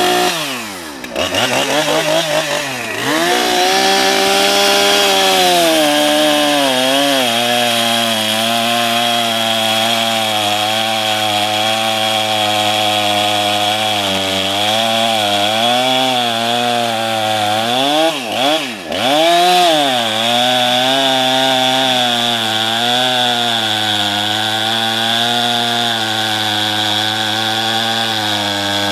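Stihl chainsaw running at high revs while bucking a big pecan log in half, its pitch wavering under the load of the cut. The engine drops off briefly about a second in and again about two-thirds of the way through, then revs back up.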